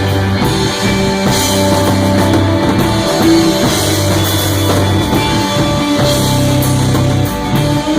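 Rock band playing live with electric guitar and a drum kit. Long low bass notes change pitch every second or two under a steady wash of cymbals.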